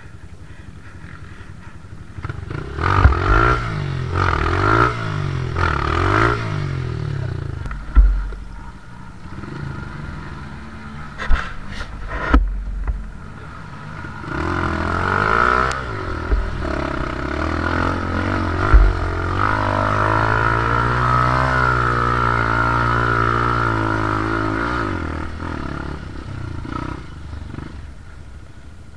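Off-road motorcycle engine revving hard in repeated bursts, with several sharp knocks and thumps, then held at high revs for about ten seconds before falling away, as the bike struggles up a steep dirt bank.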